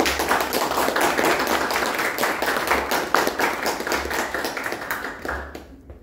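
Applause: hands clapping, starting suddenly and dying away near the end.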